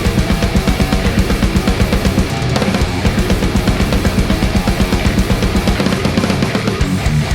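Heavy metal music: a drum kit playing a fast, steady beat under guitar.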